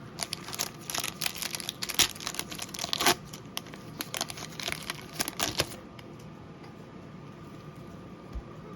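Trading card pack wrapper torn open and crinkled by hand, a dense run of crackles that dies away about six seconds in to faint handling.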